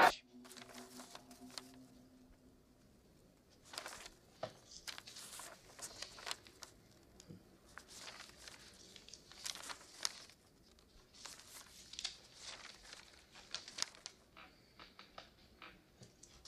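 Faint rustling and crinkling of newspaper sheets as they are handled and shuffled, in short irregular bursts.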